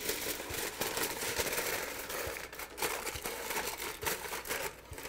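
Aluminium foil crinkling and crackling as it is pressed and folded down over the rim of a small pot to seal it.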